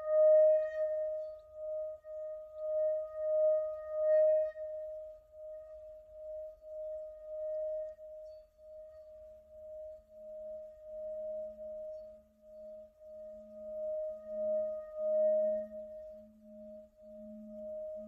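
Brass Tibetan singing bowl sung by circling a red covered mallet around its rim. It gives a steady ringing tone with higher overtones that swells and fades about twice a second. A lower hum grows in from about halfway.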